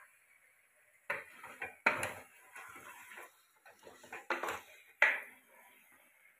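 A ladle stirring and tossing chicken in thick masala inside a metal pressure cooker, scraping along the pot with about four sharp knocks against its side; the loudest come about two seconds in and again at five seconds.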